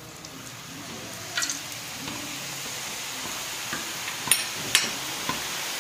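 Besan sev dough being rubbed by hand through a perforated metal jhara into hot oil, the strands frying in a steady sizzle that slowly grows louder as more dough goes in. A few sharp clicks cut through it, one about a second and a half in and two close together near the end.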